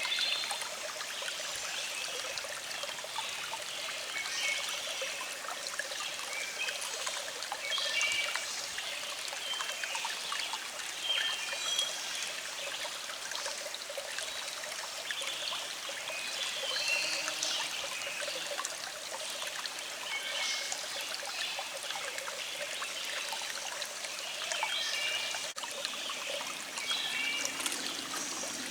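A small stream trickling and burbling steadily, with birds singing in the background as short, high chirps scattered throughout.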